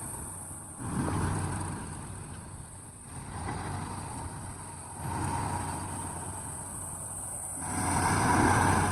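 Diesel engine of heavy earth-moving machinery running under load, its sound rising and falling in several surges, loudest near the end.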